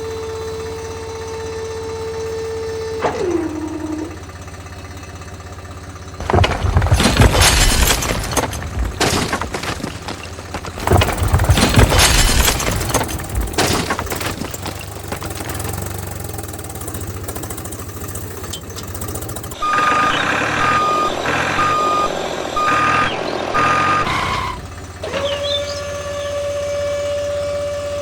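Small electric motor of a DIY miniature tractor whining steadily, dropping in pitch and stopping a few seconds in. Then a long loud rush of loose material, likely soil tipping out of the trolley. About five beeps come roughly a second apart before the motor whine starts again near the end.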